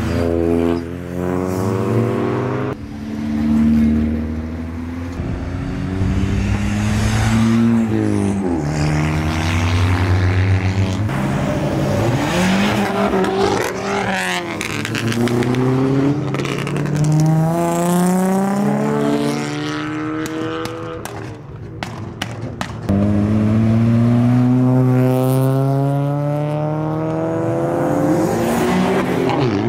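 Modified tuner cars driving out one after another, engines revving and accelerating away, their pitch rising again and again through the gears. One gets noticeably louder as it accelerates about three-quarters of the way through.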